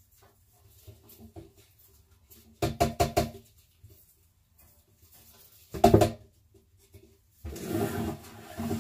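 A quick run of about five sharp knocks, a single louder thump near the middle, then a rubbing, scraping noise near the end, over faint scattered ticks.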